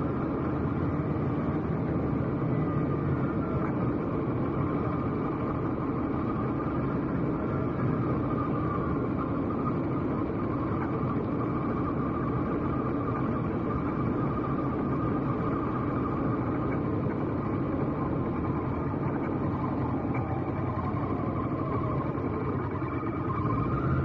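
Motorcycle engine running with steady road and wind noise while riding down a steep, rough road.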